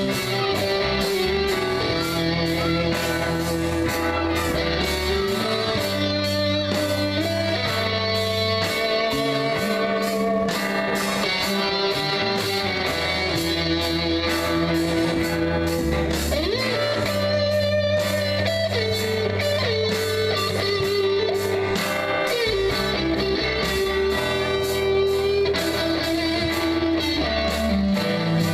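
Live rock band playing: a lead electric guitar carries a melody over rhythm guitar, bass guitar and drums. Bass notes hold for a second or two each and change throughout.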